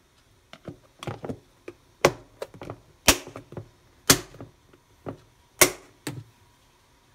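Clip-lock plastic food storage container being closed: the lid pressed on and its locking flaps snapped down, a series of sharp plastic clicks and snaps, four of them loudest, about a second apart.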